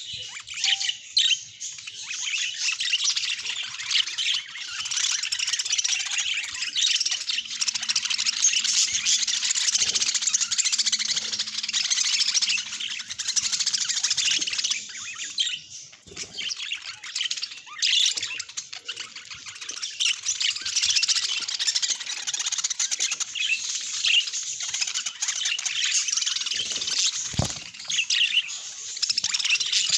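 Budgerigars chirping and chattering without a break, many short warbled calls overlapping. A brief dull thump comes near the end.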